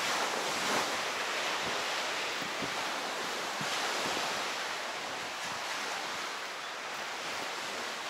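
Steady wash of small waves on the shore mixed with wind on the microphone, with faint footsteps about once a second.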